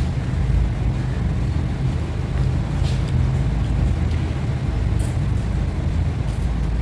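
Steady low mechanical hum, with a few faint clicks about three, five and six seconds in.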